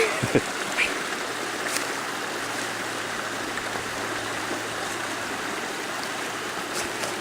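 Waterfall running high after heavy rain: a steady, even rush of falling water.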